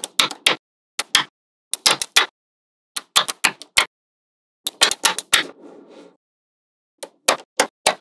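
Small magnetic balls snapping together in quick groups of two to four sharp clicks as rows of balls are set down and joined into a flat slab. A brief, softer rattle of balls shifting comes a little past the middle.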